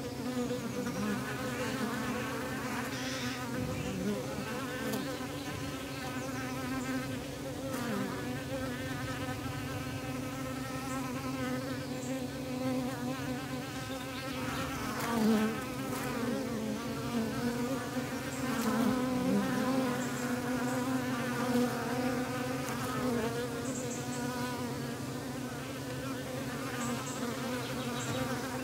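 A colony of honeybees buzzing around an opened hive in a steady, dense hum of several overlapping pitches. A few short knocks break in now and then.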